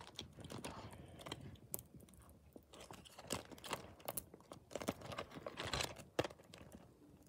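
Clear plastic zippered pouch being handled and opened: faint crinkling of the stiff plastic with irregular small clicks as the zip and edges are worked.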